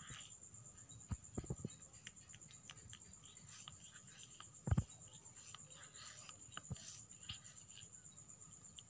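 A tabby cat licking its fur while grooming: faint, irregular small licking clicks, with one louder thump about five seconds in, over a steady high-pitched whine.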